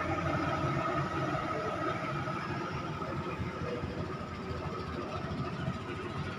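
Klotok riverboat engine running steadily, a constant low hum with a steady higher whine above it.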